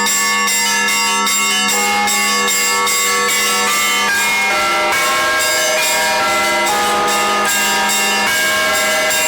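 Russian Orthodox church bells rung together in a Sunday peal: small bells struck in a rapid, even rhythm, about two or three strikes a second, over a steadily sounding deeper bell. The pattern of pitches changes about halfway through.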